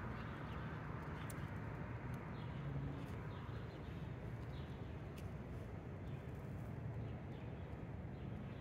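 Steady low outdoor rumble, with a few faint, short high chirps and thin clicks scattered through it.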